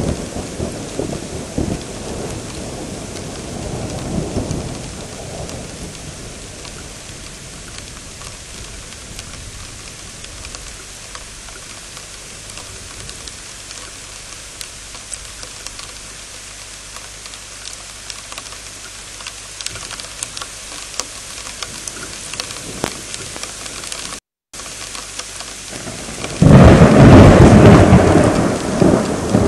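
Heavy rain falling steadily in a thunderstorm, with thunder rumbling through the first few seconds and a loud thunderclap breaking suddenly near the end.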